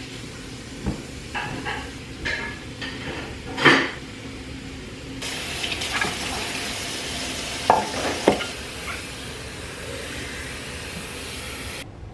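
A kitchen tap runs in a steady hiss into the sink while a metal colander and dishes are rinsed, with two sharp clinks of metal against the sink partway through. Before the water starts, about five seconds in, there are scattered soft knocks and thumps.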